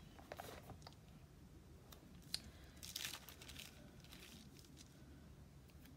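Faint rustling and crinkling of sticker sheets and a thin translucent sheet being handled, with a single light click a little after two seconds in.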